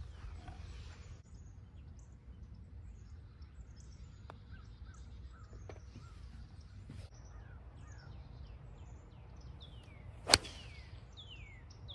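A golf club striking a ball off the tee: one sharp crack about ten seconds in, the loudest sound. Birds call with short falling chirps throughout over a low wind rumble.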